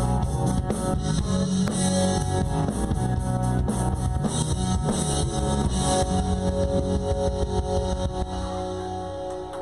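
Live rock band with electric guitars, bass and drum kit playing the instrumental close of a song after the last chorus. About eight seconds in the drums and bass stop and a final held chord rings out, fading.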